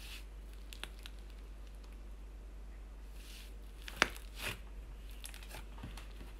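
Thick slime being kneaded and stretched by hand, giving scattered sticky clicks, small pops and crackles, the loudest a sharp crackle about four seconds in followed by a brief squish.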